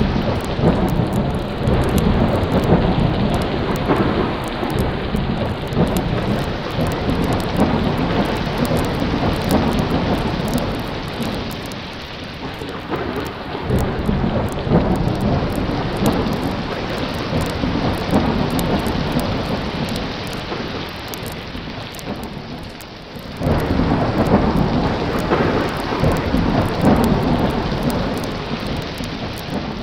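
Recorded thunderstorm: steady rain with long rolls of low thunder. One roll fades out about twelve seconds in, and a new one starts suddenly about twenty-three seconds in.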